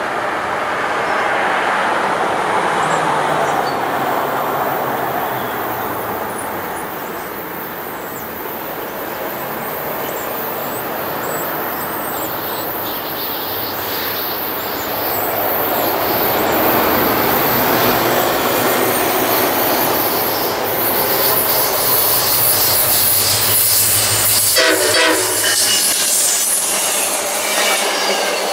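Freight train of loaded hopper cars rolling past: steady wheel-and-rail rumble with faint high wheel squeals. About halfway in a second, oncoming passenger train adds its noise, growing louder until it passes close by near the end.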